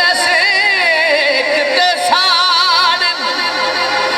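A male Punjabi folk singer's voice holds a long, ornamented melody with heavy vibrato. It comes as two drawn-out phrases, with a short break about two seconds in.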